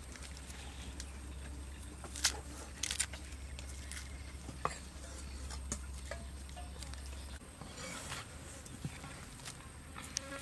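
Dry red onion skin crackling and tearing as it is peeled with a knife, in scattered short crisp clicks. A low steady hum runs under it and stops about seven seconds in.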